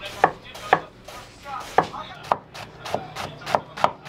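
Kitchen knife chopping cabbage on a cutting board: about eight sharp chops at an uneven pace.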